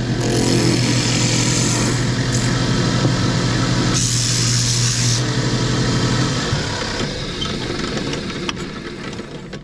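Electric motor of a woodworking power tool running with a steady hum. A brief higher hiss of cutting comes about four seconds in, then the tool is switched off and winds down over the last few seconds.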